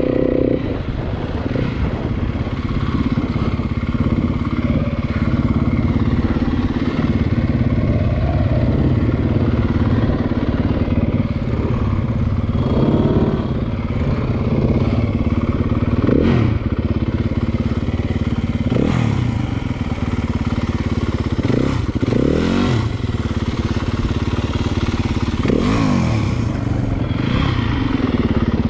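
Dirt bike engine running while riding, with the engine note swinging up and down in pitch about five times in the second half as the throttle is opened and closed.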